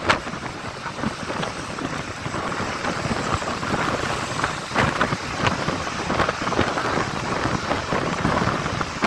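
Wind rushing and buffeting over a phone microphone held out of a moving bus's window, with road noise beneath and a few sharper bumps.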